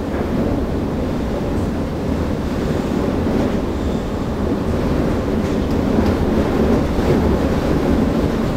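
Loud steady roar of storm wind, a rushing noise heaviest in the low end.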